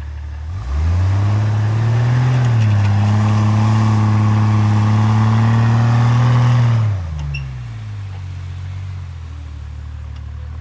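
4x4 engine revs up from idle and is held at steady higher revs under load for about six seconds, then drops back to idle. This is the pull that tugs a stuck Jeep Wrangler out of compacted snow.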